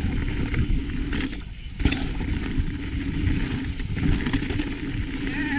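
Mountain bike riding down a dirt and rock trail: a steady rush of wind on the camera over the rumble of tyres, with sharp knocks as the bike hits bumps, the loudest about two seconds in. A short squeal comes near the end.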